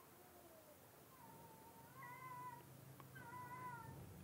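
Three faint, wavering animal calls, each under a second long, over a low steady hum.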